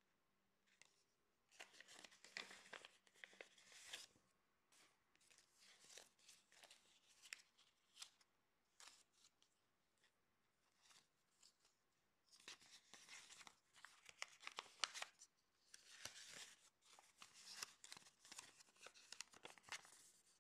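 Paper rustling and crinkling as a sheet of paper and a banknote are handled and folded, in three spells, the longest in the second half.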